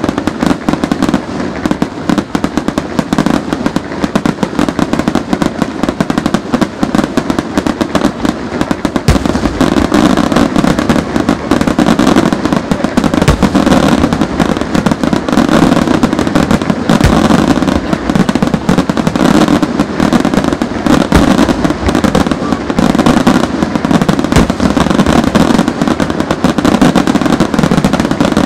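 Aerial firework shells bursting in a dense, continuous barrage of loud bangs and crackling. Deeper, heavier booms join in from about nine seconds in.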